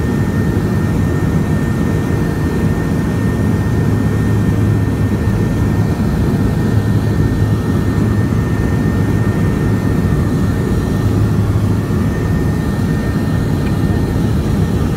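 Cabin noise of a BAe Jetstream 32's twin Garrett TPE331 turboprops on approach to land: a steady, loud low propeller drone with a thin high whine over it.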